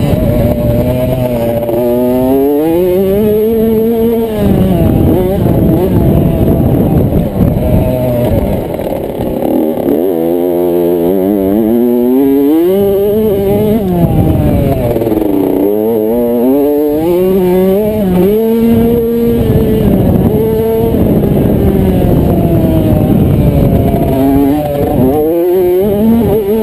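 Kawasaki KX65 two-stroke motocross bike engine, heard on board at race pace: its pitch climbs and drops over and over as the rider accelerates, shifts and backs off for corners.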